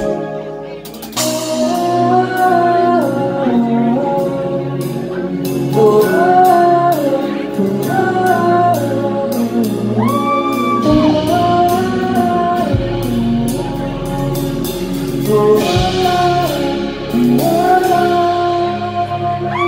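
Live band music with a male singer holding long, sliding notes over sustained chords and a light, steady beat.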